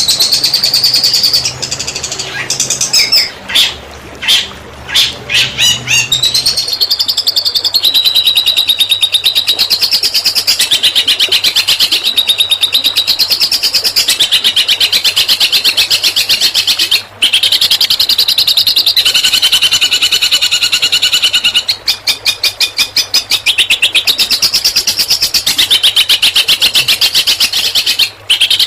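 Songbird singing rapid trilled 'tembakan' bursts: fast runs of sharp, high repeated notes. It opens with separate quick notes for the first several seconds, then settles into long unbroken trills with a few brief breaks.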